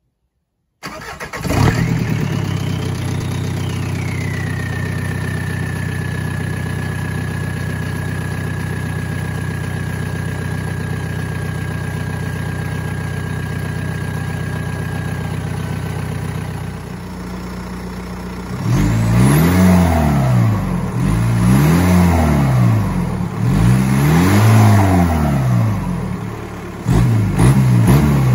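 A straight-piped Volkswagen New Beetle's 1.9 TDI four-cylinder turbodiesel starting from cold and settling into a steady idle, with a high whine over it that drops in pitch a few seconds in and fades out near the middle. After about eighteen seconds the engine is revved four times, each rev rising and falling.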